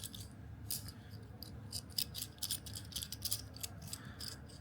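Small metal parts of a door latch clicking and clinking as it is taken apart by hand: an irregular run of light, sharp taps, several a second.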